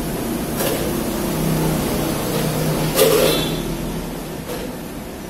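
A motor running steadily, with a sharp click about half a second in and a louder one about three seconds in.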